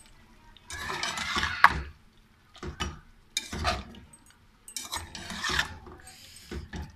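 A slotted metal spatula scraping and stirring beef pieces, yogurt and masala around an aluminium pot while they fry, in about five rough strokes, the longest about a second in.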